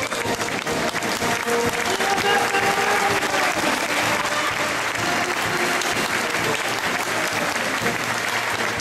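Crowd applauding steadily, with music playing underneath.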